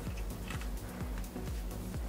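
Quiet background music with a steady beat of about two low thumps a second.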